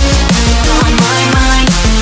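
Background electronic music with a steady drum beat and deep bass.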